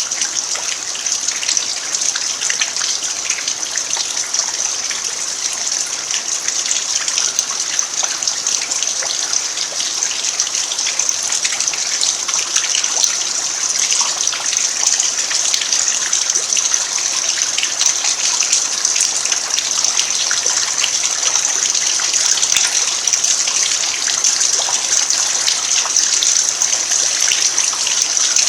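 Steady rain falling on a packed-earth yard: an even hiss made of countless small drop ticks, with no let-up.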